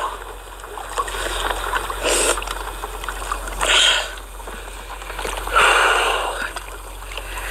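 Three short rushing noises a second or two apart from a scuba diver floating at the water's surface, over a low steady hum.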